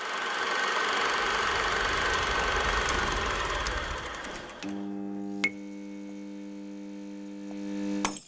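Film projector running, a loud mechanical whirr and hiss that fades out about four and a half seconds in. A steady held chord of several notes follows, with one sharp click partway through, and cuts off just before the end.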